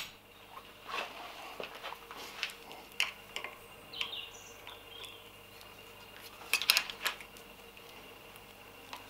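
Quiet, scattered metallic clicks and ticks of a number one Phillips screwdriver undoing the two small screws under a motorcycle's clutch-side handlebar switch housing, with a louder cluster of clicks about six and a half seconds in.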